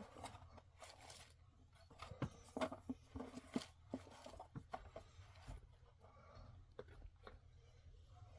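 Faint, irregular clicks and light knocks of storage-rack pieces being handled and fitted together, with a few louder taps between about two and four seconds in.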